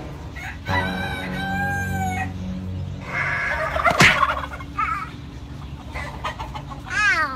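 Roosters crowing and chickens clucking, in a run of drawn-out pitched calls, with one sharp click about four seconds in.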